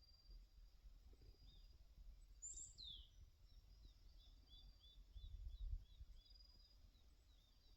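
Faint birdsong: small birds giving a run of short, high chirps, several a second, with one louder call sweeping down in pitch about two and a half seconds in. A low rumble swells briefly a little past halfway.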